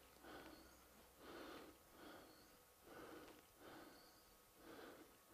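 Near silence with faint, regular breaths, one about every second.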